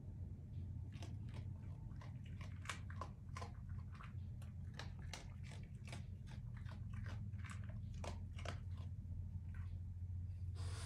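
Raccoon chewing and crunching food from a dish, with irregular crisp crunches over a steady low hum.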